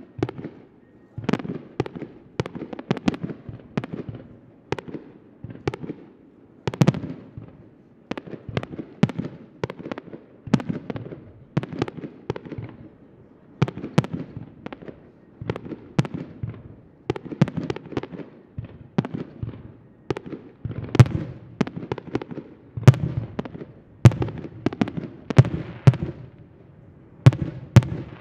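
Aerial firework shells bursting in quick, irregular succession, often several bangs a second, with the loudest bangs in the last third.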